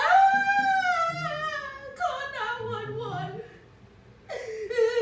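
A high-pitched voice in long, wavering wordless notes that rise and fall, breaking into shorter cries, with a brief pause and another drawn-out note near the end.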